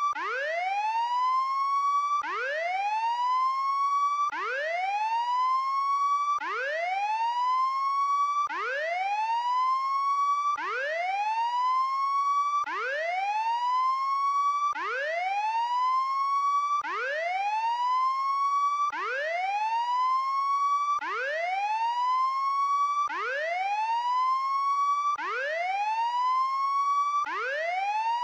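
Prison break alarm siren sounding a repeating whoop. Each cycle rises quickly in pitch, holds near the top for about two seconds, then cuts off suddenly and starts again.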